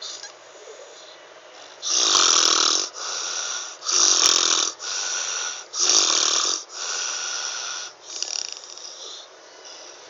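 Snoring: loud snores alternating with quieter breaths, about three quick cycles starting about two seconds in, with fainter breathing before and after.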